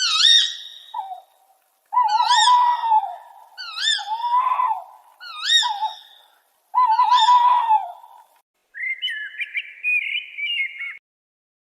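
Bird calls: an arched, whistled note that rises and falls, repeated five times at even spacing, over a lower wavering tone. Near the end comes a different, higher fluttering call lasting about two seconds.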